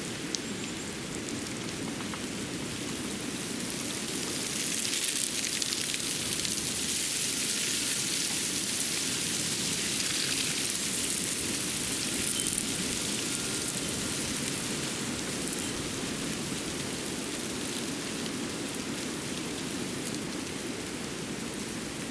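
Winter forest ambience: a steady rushing hiss that swells for several seconds, then eases back to an even level, with a few faint ticks.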